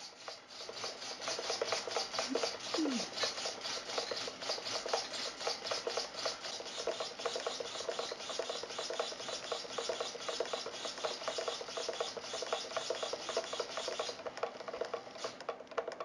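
Two hobby servos whirring and buzzing in quick, repeated back-and-forth movements as the control surfaces are worked, falling silent about 14 seconds in when the receiver browns out with its supply turned down to about 3.1 volts.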